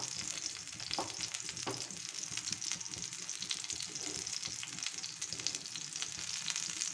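Suji chilla batter frying in refined oil on a non-stick tawa: a steady sizzle with fine crackling of the oil bubbling around the edges of the batter.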